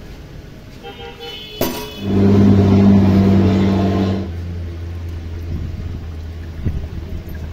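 Road traffic: a motor vehicle's engine gives a loud, steady low hum for about two seconds, then settles to a quieter drone. A short horn-like toot and a sharp click come just before.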